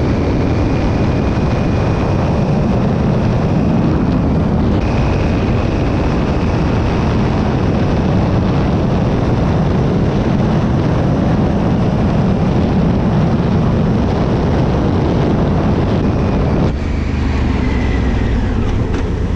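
Honda Africa Twin CRF1000L parallel-twin engine running on the move, under a steady rush of wind and road noise; the noise drops suddenly near the end.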